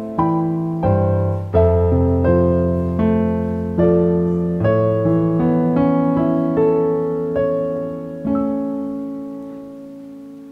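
Piano playing slow, sustained chords, each struck and left to ring. The last chord comes about eight seconds in and fades away.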